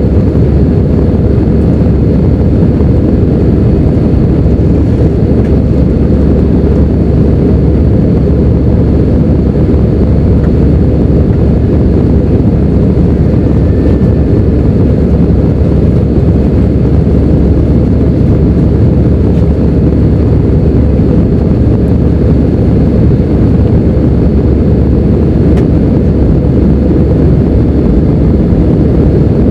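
Steady low rumble of jet engine and rushing-air noise inside the cabin of an Airbus A319 in flight after takeoff, even and unchanging throughout.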